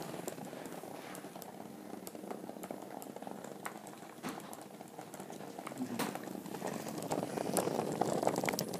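Hexbug Nano vibrating toy bugs running over a tabletop track, a rapid fine buzzing rattle with scattered small clicks. It gets louder near the end.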